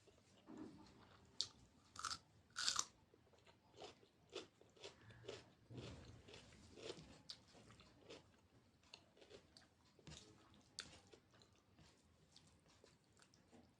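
A person chewing food close to the microphone, with many short crunchy bites; the loudest crunches come about two to three seconds in.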